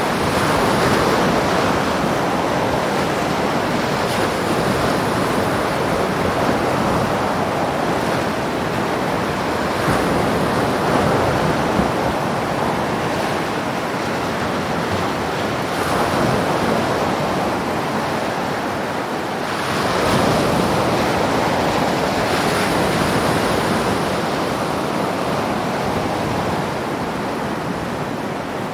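Small waves washing onto a sandy beach, a steady surf noise that swells a few times, with wind buffeting the microphone.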